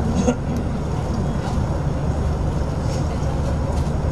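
A steady low rumble with a faint murmur of voices underneath.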